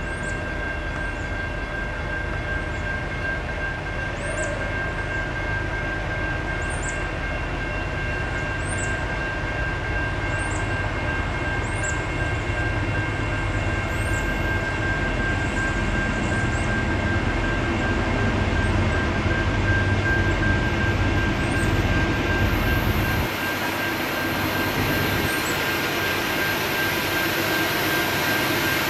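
CSX freight train running out of sight: a steady low rumble with a steady high whine over it. The rumble drops away suddenly about 23 seconds in, while a high hiss grows toward the end. A bird chirps every couple of seconds.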